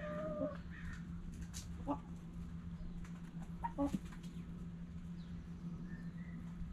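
Backyard hens foraging: a short clucking call at the start, then a few sharp pecking taps as a hen pecks at scattered grain. Faint high chirps come near the end, over a steady low hum.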